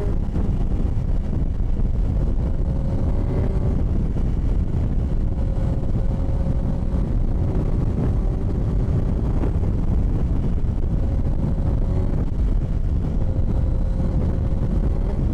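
Motorcycle engine running at a steady drone under heavy wind buffeting on the microphone, as when riding at speed.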